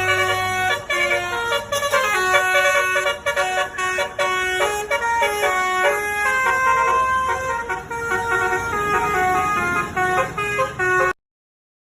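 Bus telolet horn playing a melody: a set of air-horn trumpets sounding quick runs of short, stepped notes, often several together. It stops abruptly near the end.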